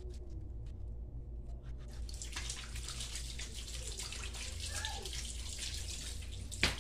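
Water running and splashing, starting about two seconds in, with a sharp knock just before the end.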